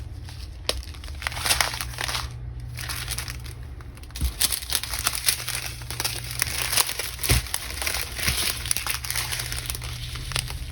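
Small plastic bags of diamond-painting drills crinkling and rustling as they are handled and sorted, over a steady low hum.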